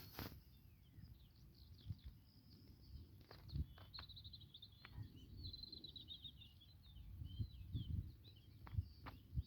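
Small birds chirping and twittering high, with a quick chattering run from about four to six seconds in, over a low rumble and a few soft knocks.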